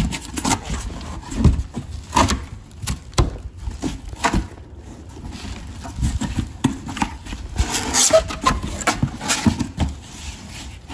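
A cardboard box being closed and handled: irregular knocks and thumps of cardboard flaps and box, mixed with short rustles of paper.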